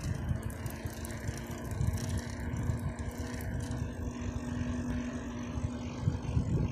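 Wind buffeting the microphone and tyre noise from a bicycle moving on asphalt, an uneven low rumble. A steady low hum runs under it and stops near the end.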